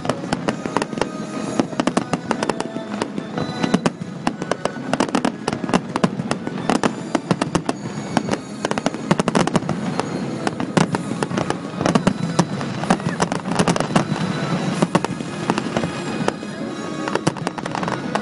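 Fireworks display: a dense, continuous run of bursting shells and crackling, many bangs a second, with music playing underneath.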